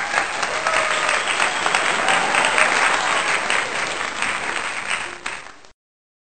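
Stock applause from a crowd, a dense steady clapping, which fades and stops about five and a half seconds in.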